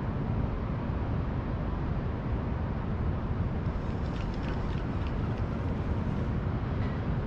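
Steady low rumble of wind buffeting the microphone, with no speech.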